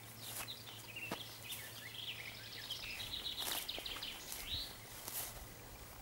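A songbird singing a quick, varied warbling phrase of high notes for about four seconds, ending in a short rising-and-falling note, with a few brief scratchy noises alongside.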